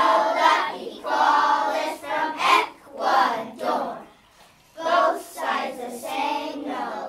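A group of young children singing together in unison, in phrases of about a second each with a short break about four seconds in.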